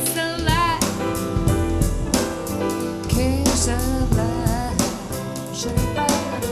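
Soul jazz music playing: drum kit and bass under a wavering, vibrato melody line that sounds like singing.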